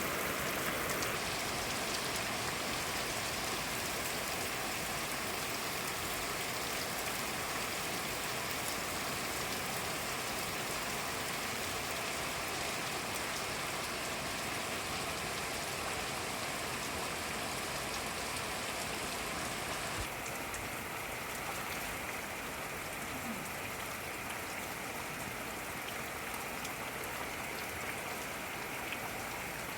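Steady rain falling and pattering on surfaces, an even hiss without a break; about twenty seconds in, the high part of the hiss drops a little.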